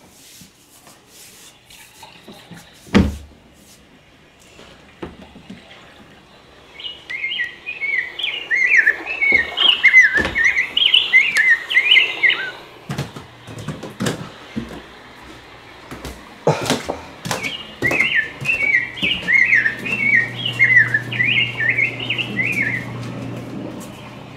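A bird chirping in two runs of rapid, jumpy high notes of about five seconds each. Scattered knocks sound throughout, with a loud thump about three seconds in, and a steady low hum starts in the second half.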